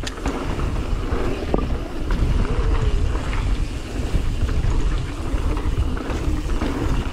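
Mountain bike rolling down a dirt trail: a steady rumble of wind on the microphone and tyres on the ground, with a few light clicks.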